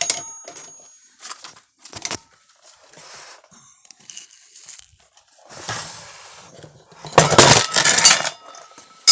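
Tools and metal parts being handled: scattered light clicks and clinks, a soft rustle, then a louder burst of rustling or scraping noise lasting about a second near the end.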